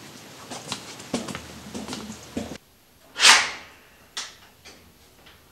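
A few light clicks and knocks, then the sound cuts to silence, and about three seconds in a sudden loud rush of noise swells and fades within about half a second.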